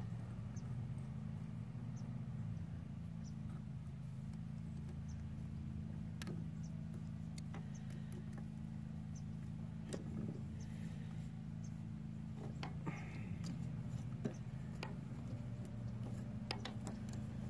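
Scattered light metallic clicks and taps of a wrench working a mounting bolt on a tractor's diesel injection pump, over a steady low hum.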